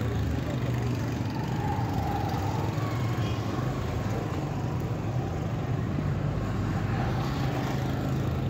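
Busy street traffic: motorcycle and car engines running along the road in a steady, continuous mix.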